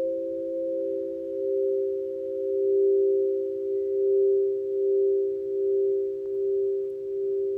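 Crystal singing bowls ringing: several steady pure tones sound together and hold, swelling and fading in loudness about once a second.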